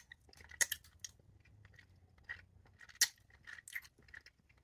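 A person chewing a soft elderberry sea moss gummy with the mouth close to the microphone: irregular wet mouth clicks and smacks, the loudest about half a second in and about three seconds in.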